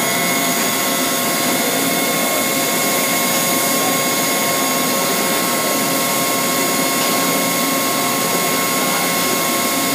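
CNC lathe running with its door open: a steady whirring hiss with a constant high whine that does not change.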